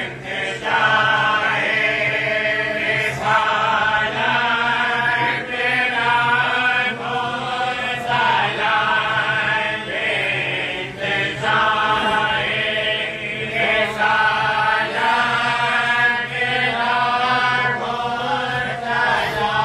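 A group of men chanting a devotional Urdu salam together without instruments, in drawn-out sung phrases of about two seconds with short breaks between them.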